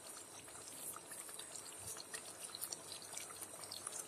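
Egg korma curry simmering in a pot: faint bubbling and sizzling with many small scattered pops.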